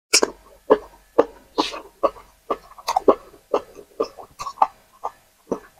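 Close-miked wet chewing and lip smacking on a mouthful of soft fufu with vegetable soup, two or three smacks a second, starting suddenly.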